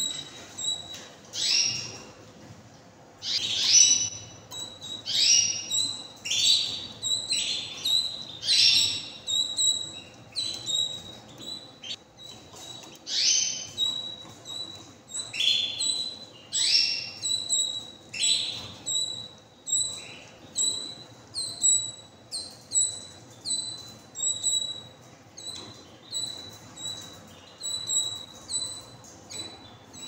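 Canaries calling: a steady run of short, high chirps, about one or two a second, many of the louder ones sliding down in pitch.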